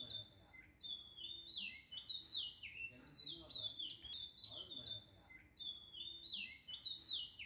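Bird-like chirping: runs of quick, high, falling chirps that repeat in the same sequence about every five seconds, over a faint steady pulsing high tone.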